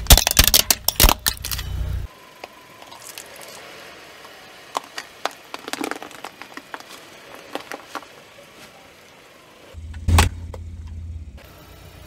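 A car tyre rolls over toy xylophones, cracking the plastic frames and jangling the metal keys: a quick run of cracks and clinks in the first two seconds, then scattered clicks. A louder crack with a short low rumble comes near the end.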